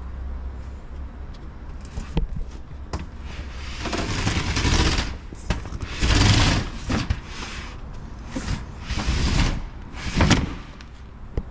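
Roll-up compartment door on a fire engine being worked and pulled shut, its slats rattling and sliding in several bursts, with a few sharp clicks.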